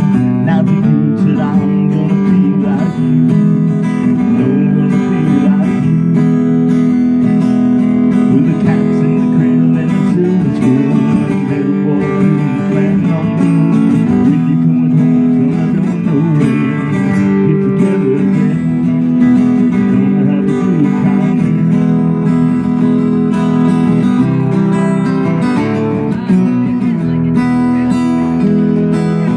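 Two acoustic guitars played live together, strummed and picked in a continuous passage.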